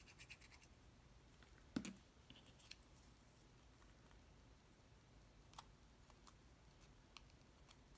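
Near silence with a few faint clicks and light taps of a small cardstock piece and a glue bottle being handled. The sharpest click comes a little under two seconds in.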